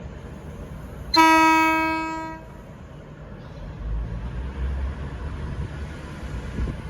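V/Line VLocity diesel railcar sounding one loud horn blast of a little over a second, sharp at the start and fading out. From about four seconds in, the train's low diesel rumble builds.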